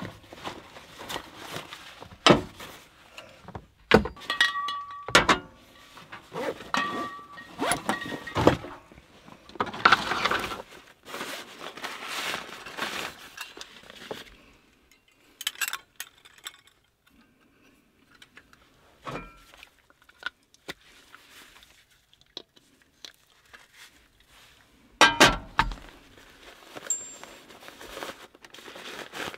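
Small metal camping gear being handled: a folding canister stove and its parts clinking and knocking, with a few clinks that ring briefly. Nylon stuff sacks rustle in between. The handling goes quiet for a while in the middle, then a quick cluster of knocks comes near the end.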